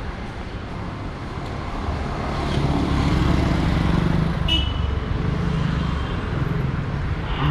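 Street traffic: a motor vehicle's engine passes close by, growing louder over a few seconds and then easing off, with a brief high-pitched tone about four and a half seconds in.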